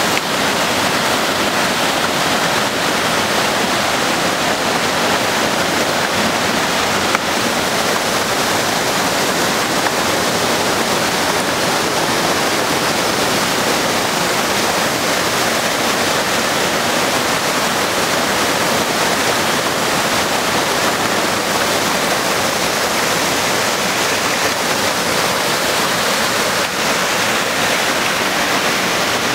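Rushing water of a mountain waterfall and the stream tumbling over boulders below it: a loud, steady, even roar.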